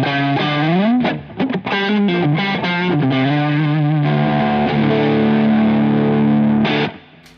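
Distorted electric guitar playing a riff with sliding, bending notes, then holding a sustained chord that cuts off suddenly near the end.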